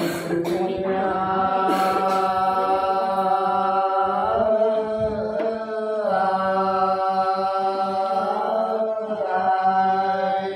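Unaccompanied Sán Dìu soọng cô folk singing: one voice holding long, slowly gliding notes in a chant-like melody.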